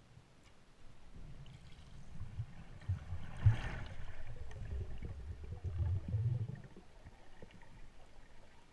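Underwater camera housing picking up the water movement of a swimming freediver: a low rumble with irregular thumps. It grows louder about a second in, has a brief sharp burst about three and a half seconds in, and quietens near the end.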